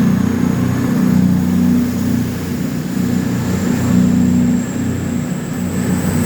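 Diesel engines of a CrossCountry Voyager multiple-unit train running loudly at the platform, a deep hum of several low tones that wavers a little in pitch.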